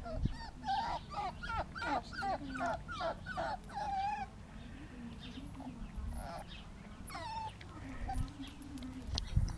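Five-week-old puppy whimpering: a quick run of short, high whines over the first four seconds, then a few scattered whines later on.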